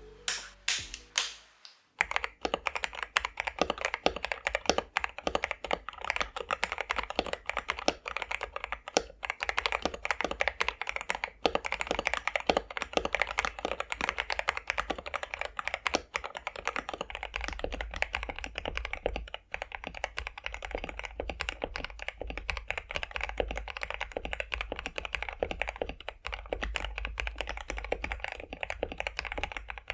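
Mechanical keyboard with Akko CS Jelly Black linear switches and cherry-profile PBT keycaps being typed on. A few separate key presses come first, then fast continuous typing from about two seconds in.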